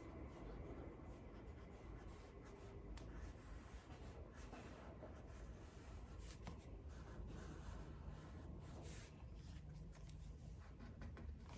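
Faint scratching and rubbing of a wrapping tool working vinyl wrap film into place by hand, in short scattered strokes over a low background hum.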